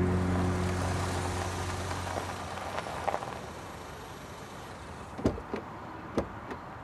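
Background music fading out over the first two seconds, under a car drawing up and stopping. A few short knocks follow about five and six seconds in.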